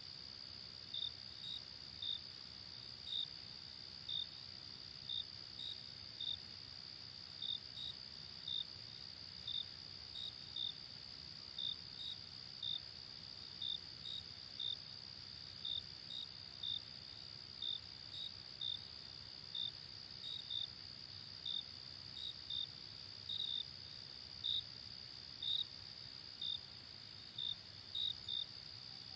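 Crickets chirping: short high chirps, irregularly spaced at about one to two a second, over a steady high insect trill.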